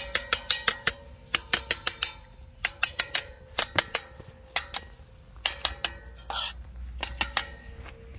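Bursts of quick metallic clinks and rattles, each with a short ringing after it: the steel bars of a puppy pen being knocked and rattled.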